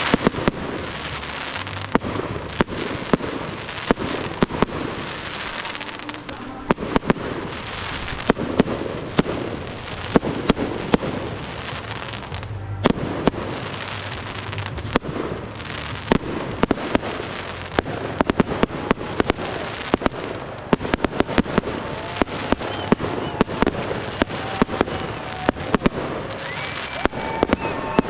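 Fireworks display: aerial shells and comets bursting overhead in quick succession, many sharp bangs over a continuous crackling hiss.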